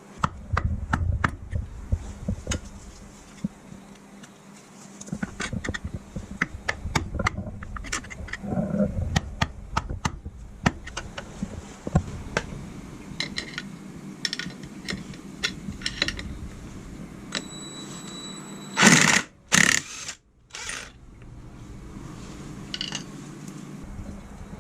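Metal hand tools and engine parts clinking, tapping and knocking during ATV engine repair work, in scattered irregular clicks. Near the end there are a couple of short, louder rushing noises, over a steady low hum.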